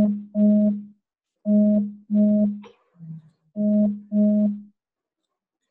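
A low buzzing signal sounding in pairs of half-second pulses, with a weaker pulse between two of the pairs, then stopping a little over a second before the end.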